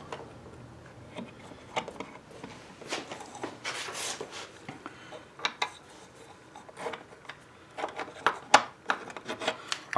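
Handling noise: scattered light clicks, taps and rubs as a 3D-printed plastic jig holding a brass cartridge case is fitted into the metal vise of a small chop saw and the saw head is pressed down by hand.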